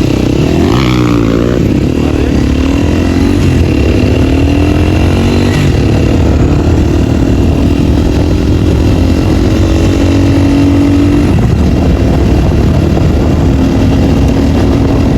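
Dirt-bike engine with its dB killer removed, revving and shifting up as the bike pulls away, then holding a steady high pitch under way. There is a brief dip in revs near the end.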